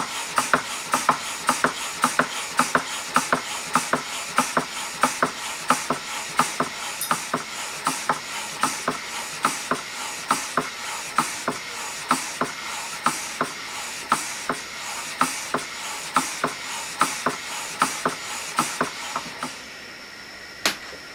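Scratch-built model Vulcan beam engine running: a regular puff with each stroke, about two and a half a second, over a steady hiss. It stops about a second before the end, followed by a single click.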